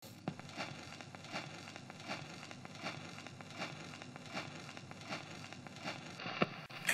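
Faint crackle and hiss like the surface noise of an old record, with a soft click repeating about every three-quarters of a second. A sharper thump comes near the end.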